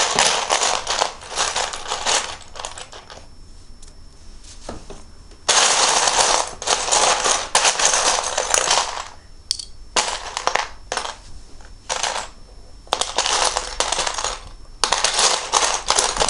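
Loose plastic Lego bricks rattling and clicking against each other as they are rummaged through by hand, in several spells of a few seconds each with short pauses between.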